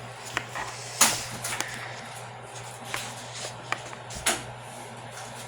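Handling noise: a scatter of short rustles and knocks over a steady low hum, with one sharp, louder knock about a second in.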